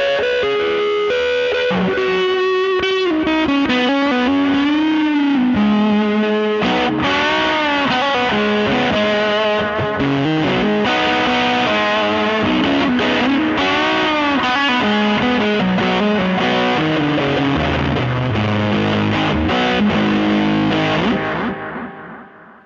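Electric guitar, a Fender Telecaster, through a Fuzz Face fuzz pedal and an MXR Carbon Copy delay into a 1966 Fender Vibrolux Reverb amp, playing a fuzzy overdriven lead with string bends. It runs down to low notes, and the last note dies away about a second before the end.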